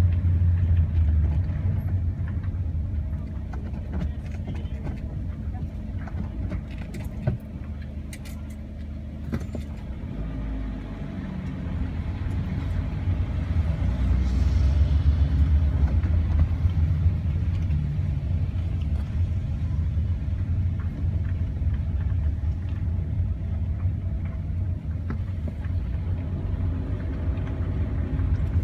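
A car driving slowly through city streets: a steady low rumble of engine and road noise that eases for a few seconds and swells again past the middle, with one sharp click about a quarter of the way in.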